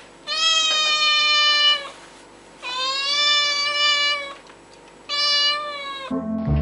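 Young cat meowing three times, each meow long and drawn out, the last one shorter.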